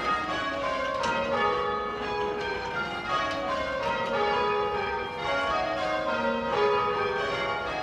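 Church tower bells rung by hand with ropes, change-ringing style: bells struck one after another in a steady repeating sequence, ringing rounds.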